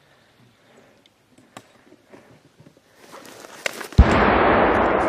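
A mortar firing close by: one sudden heavy boom about four seconds in, followed by a long echo that slowly fades. Before it, rustling of movement through grass.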